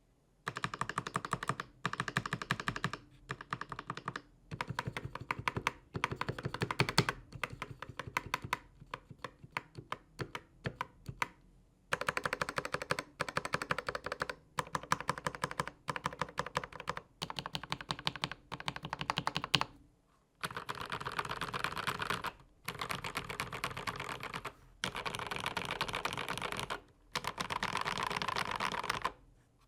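Fast typing on a Dark Project KD87A mechanical keyboard with factory-lubricated Gateron switches, in runs of a second or two broken by brief pauses. The tone of the keystrokes shifts about twenty seconds in.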